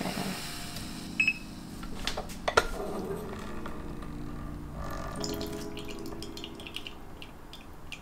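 Water pouring or running, with a short beep about a second in and a few sharp clicks of hard coffee gear.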